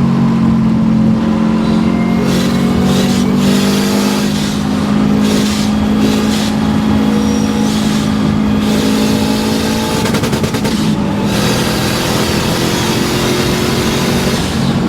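Subaru Impreza WRX rally car's engine pulling hard at speed, holding a steady high pitch that sags slightly about two-thirds of the way through.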